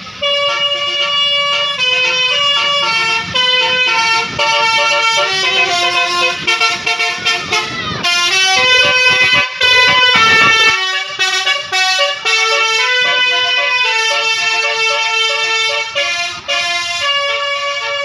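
Basuri musical air horn on a bus playing a telolet tune: a rapid run of loud horn notes stepping up and down in pitch, with a short change in the tune about eight seconds in.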